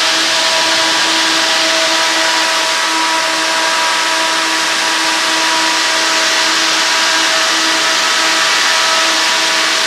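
16-inch SPAL electric pusher fan on a car radiator running: a steady rush of air over a constant motor hum.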